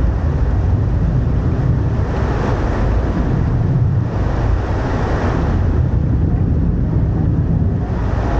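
Tourist riverboat under way: a steady low engine rumble with water rushing along the hull and wind buffeting the microphone, swelling a couple of times.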